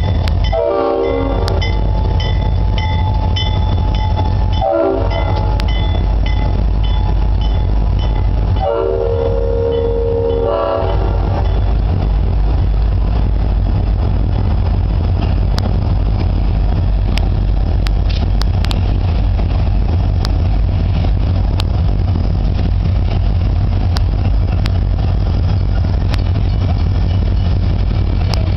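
Pan Am Railways diesel freight locomotives passing close by, their engines rumbling, with the air horn sounding three blasts: a short one, a shorter one, then a long one ending about eleven seconds in. A grade-crossing bell dings steadily during the first several seconds. Afterwards tank cars roll past with sharp wheel clicks over the rail joints.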